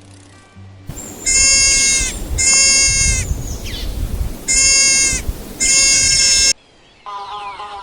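An animal calling loudly four times, each call about two-thirds of a second long and held on a steady pitch with many overtones. The calls stop abruptly.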